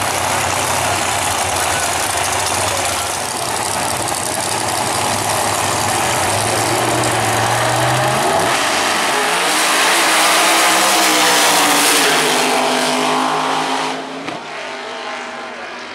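Two Pro Mod drag cars running at the starting line, then launching together, their engine pitch climbing through the run. The sound drops away sharply about fourteen seconds in as the cars finish the pass.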